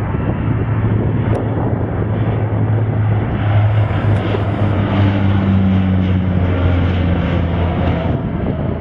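Twin-engine turboprop airliner taking off and climbing out close by, its engines at take-off power giving a loud, steady propeller drone. Past the middle the pitch drops slightly as it goes by.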